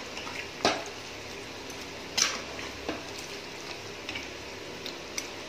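Metal ladle stirring chicken curry in an aluminium pressure cooker, with a few sharp clinks against the pot, the clearest about a second in and two more around two to three seconds in.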